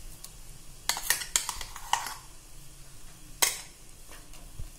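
Wooden spoon knocking and scraping against a pressure-cooker pot as ground barley paste is pushed off it into the soup: a few sharp taps, the loudest about three and a half seconds in.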